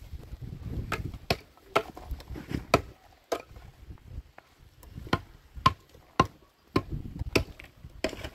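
Repeated sharp blows of a tool striking a hard material, about a dozen strikes at uneven spacing, a few with a short metallic ring.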